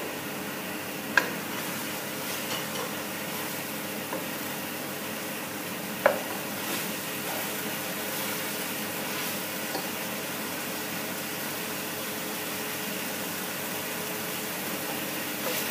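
Onion and tomato masala sizzling in oil in a pot while a wooden spoon stirs and scrapes through it. Two sharp knocks stand out, about a second in and about six seconds in, with a few lighter clicks between.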